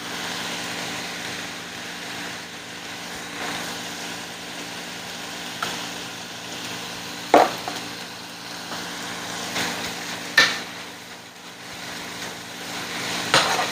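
Chicken pieces frying in oil, butter and soy sauce with a steady sizzle while being stirred, with a few sharp clacks of a utensil against the pan, the loudest three coming about every three seconds in the second half.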